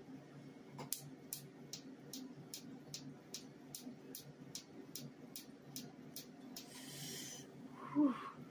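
Q-switched Nd:YAG laser firing pulses onto tattooed skin: a rapid series of sharp snaps, about four a second, that stops about six and a half seconds in. A brief hiss follows, then a short vocal sound near the end.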